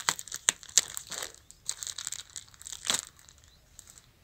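Plastic grow bags of oyster mushroom substrate crinkling and crackling under a hand as they are handled. There are quick sharp crackles in the first second or so and a louder one about three seconds in.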